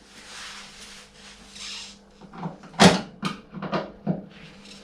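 Hand tools and loose metal and plastic parts of a washing machine being worked on during disassembly. A soft scraping rustle is followed, about two seconds in, by a run of sharp clicks and knocks, the loudest one a little before the three-second mark.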